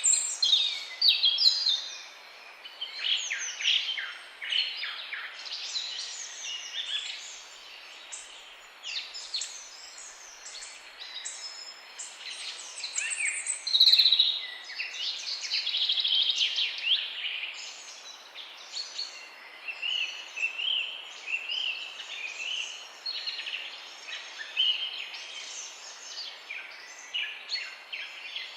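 Many songbirds singing at once in a dense chorus of chirps, trills and whistles, one song overlapping the next, over a steady background hiss.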